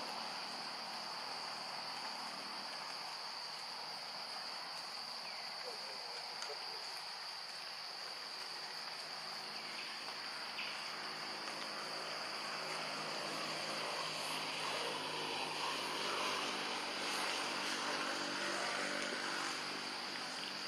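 Steady high-pitched drone of insects over a broad hiss of forest ambience. A faint low hum joins about halfway through and grows a little louder near the end.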